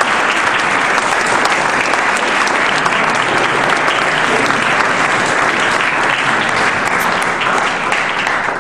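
Audience applauding steadily after a trumpet concerto performance, a dense, even patter of many hands clapping.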